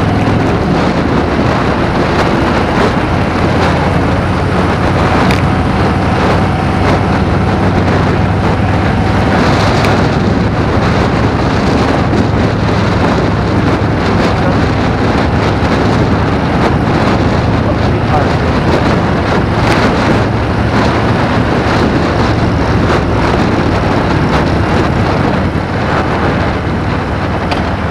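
Motorcycle riding at steady road speed: the engine hums low and steady under heavy wind noise buffeting the microphone.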